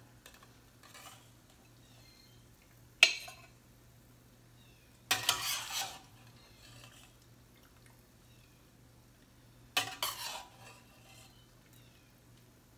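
Metal tongs clinking and clattering against a stainless steel pot and a ceramic bowl as cooked vegetables are lifted out of the broth. A sharp clink about three seconds in is the loudest, with longer bouts of clatter around five seconds and again near ten seconds.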